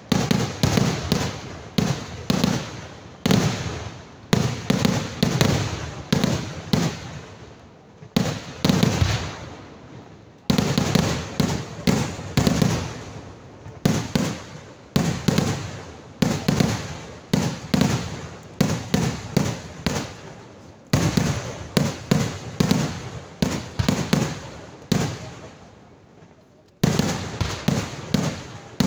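Kerala temple-festival fireworks (vedikettu): rapid runs of loud firecracker bangs, several a second, each dying away before the next run starts. A short lull comes just before the end, and then the bangs resume.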